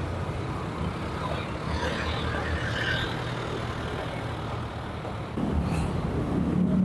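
Street traffic on a busy city road: vehicle engines running and passing. About five seconds in, a nearby engine's hum grows louder.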